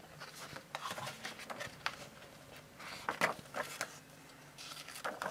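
A book being opened and its paper pages turned by hand: soft, irregular rustling and flapping of paper, with louder page sounds about three seconds in and again near the end.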